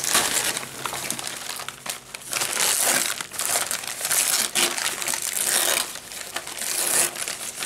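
Tissue paper and a plastic sleeve crinkling and rustling in irregular bursts as they are handled and pulled away from a potted orchid.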